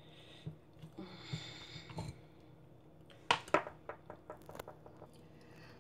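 Plastic slotted spoon scraping and tapping grated ginger pulp in a stainless-steel mesh strainer while straining ginger tea: light scrapes and clicks, with a couple of sharper knocks about three and a half seconds in.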